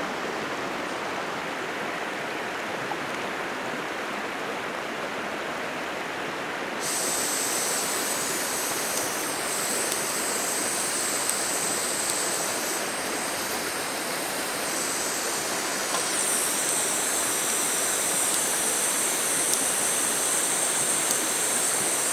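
A shallow river running over rocks, a steady rush of water. About seven seconds in, a high hiss starts suddenly and keeps going: gas escaping unlit from a small canister camp stove whose lighter will not light it.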